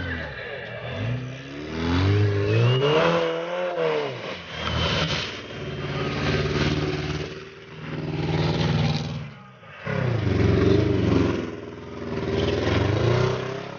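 Off-road 4x4 engine revving hard in repeated surges, pitch rising and falling several times as the driver works the throttle.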